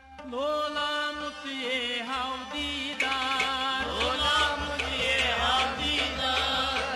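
Kashmiri folk music: a man's voice singing wavering, sliding notes. About three seconds in, fuller instrumental accompaniment joins with a low, pulsing drum beat.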